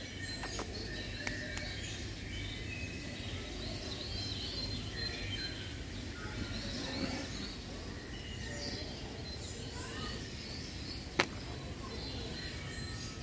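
Small birds chirping and twittering on and off over steady outdoor background noise, with one sharp click about eleven seconds in.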